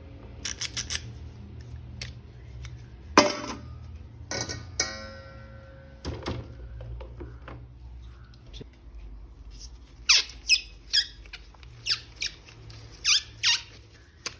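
Plastic action figure and its packaging being handled: a scattering of sharp clicks and taps, one louder knock about three seconds in, then several short squeaks that fall in pitch near the end as plastic rubs on plastic.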